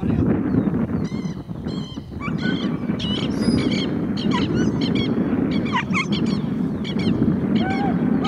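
Many short, high, yelping animal calls, one after another, over a steady rumble of wind on the microphone.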